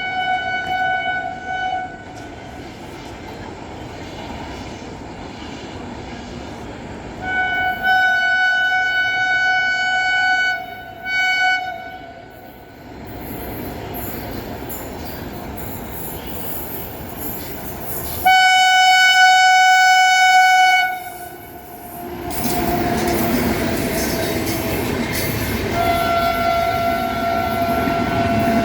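Swaraj Express locomotive horn sounding a series of long, steady blasts as the train runs through a station without stopping, the loudest blast about two-thirds through. After that come the rumble and clickety-clack of the passing coaches, with one more slightly lower-pitched horn blast near the end.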